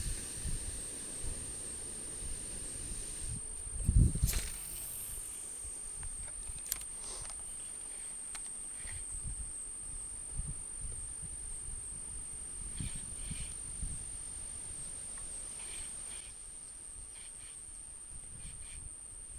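Insects trilling in a thin, steady, high-pitched tone. A brief loud burst of knocks and a swish comes about four seconds in, and scattered faint knocks follow.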